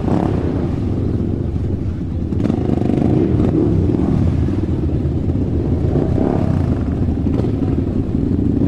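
Motorcycle engine running steadily, its note rising and falling a few times as the throttle is opened and eased off.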